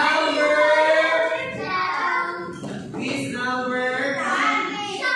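Several children's voices at once, drawn out in long sung tones.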